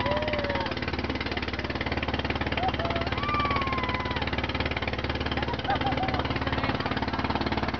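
Engine of a motorized outrigger boat running steadily under way, a fast, even pulse, over a constant rush of wind and water.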